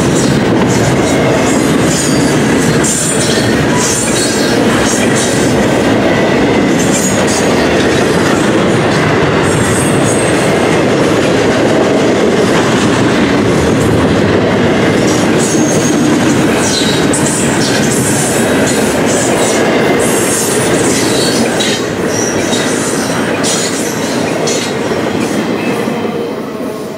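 Double-stack intermodal container well cars rolling past at track speed: a steady rumble of steel wheels on rail, with short high squeals from the wheels scattered through it. The sound fades near the end as the last car goes by.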